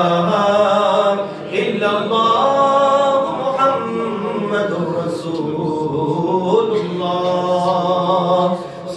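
A man's unaccompanied devotional chant into a microphone, a melodic recitation on long held notes, over a steady low drone.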